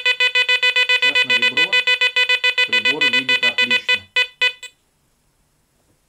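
Garrett ACE Apex metal detector sounding its target tone over an old false-braided bronze-age-style ring: a loud, mid-pitched electronic tone pulsing rapidly, about eight beeps a second, which stops suddenly a little before the end. It is the detector's response at a VDI of about 47, close to its reading for a gold wedding ring.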